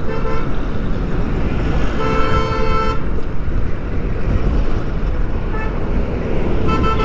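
Vehicle horns honking in city traffic: a short toot at the start, a held honk about a second long two seconds in, and more short toots later. Underneath is the steady low noise of engines and traffic.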